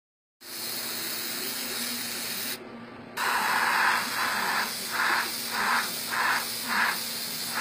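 Iwata Custom Micron airbrush spraying paint with a steady hiss of air. About two and a half seconds in, the hiss cuts out briefly. It then comes back with short pulses of spray about twice a second, the feathered strokes of freehand background work.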